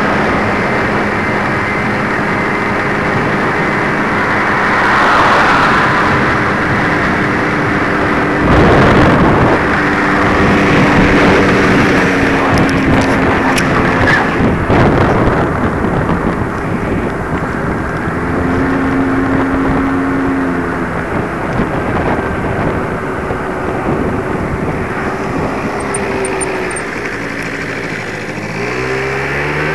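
Motor vehicle engine running under steady wind and road rush as the vehicle travels along a road. There is a loud burst of noise about eight and a half seconds in, and near the end the engine pitch climbs steeply as it accelerates.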